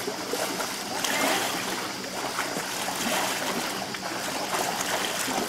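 Shallow water splashing and sloshing around legs as several people wade through it, with small irregular splashes.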